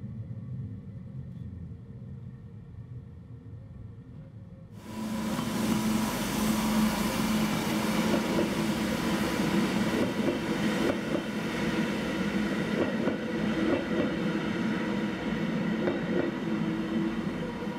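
A low rumble inside the cab of a train rolling into the station, then, about five seconds in, a sudden louder sound: a Rhaetian Railway narrow-gauge electric train (Be 512 motor car with coaches and driving trailer ABDt 1712) moving past close by. Its electric drive gives a steady hum, and its wheels click over the rail joints.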